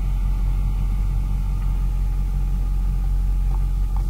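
Caterpillar D6D crawler dozer's six-cylinder diesel engine running steadily under load as the dozer pushes a stump, a continuous deep rumble.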